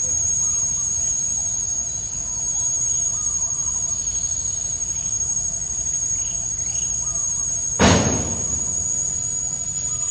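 Insects trilling steadily at a high pitch over low background noise, with a few faint short chirps. About eight seconds in comes one sudden loud crackle.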